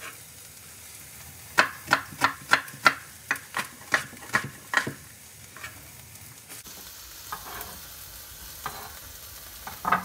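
A kitchen knife chopping a yellow onion on a wooden cutting board: about ten quick knocks, some three a second, from about a second and a half in until about five seconds in, then a few scattered strokes. Under it, butter and peppers frying in a pan keep up a steady sizzle.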